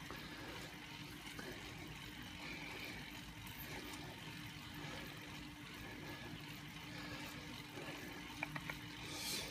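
Stationary spin bike running with a steady low whir from its flywheel as it is pedalled. A few faint clicks come near the end.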